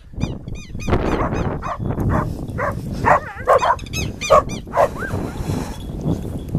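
Rapid, repeated animal calls: short yelps and sharp, high hooked chirps, one after another, over a low rumbling background.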